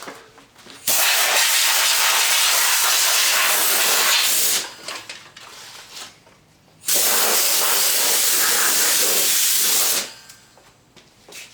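Compressed air hissing from a blow gun in two long blasts, each starting and cutting off abruptly, blowing dried grass and debris off a lawn mower.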